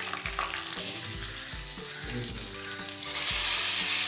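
Hot oil sizzling and crackling around a tempering of onions, curry leaves, chillies and cumin seeds in a pan. About three seconds in the sizzle jumps to a much louder, steady hiss as the hot tempering is poured onto the kadhi.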